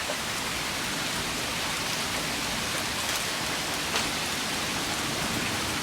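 Heavy rain from a hailstorm pouring down steadily, an even hiss with an occasional faint tap.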